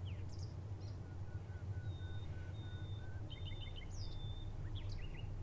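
Small birds chirping and whistling over a steady low hum, with a row of short, evenly spaced whistled notes about a second in and quick chirps near the end.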